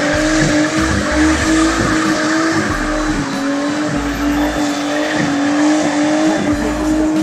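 Nissan 240SX's RB20DET turbocharged straight-six held high in the revs through a drift, its engine note wavering only slightly, over the squeal and hiss of the rear tyres skidding sideways.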